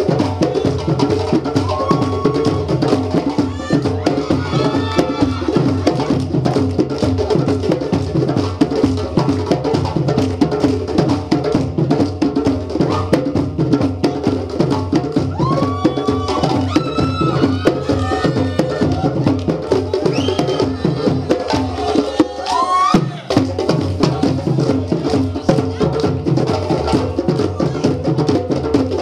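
Ensemble of West African djembe drums playing a fast, steady Malinke rhythm, with a few high sliding calls over the drumming. The low drums drop out for about a second three quarters of the way through, then the rhythm picks up again.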